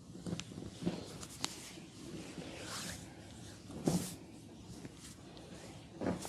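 Hand massage on skin: a soft rubbing swish, a few sharp light clicks, and a louder thud about four seconds in, with another just after six seconds.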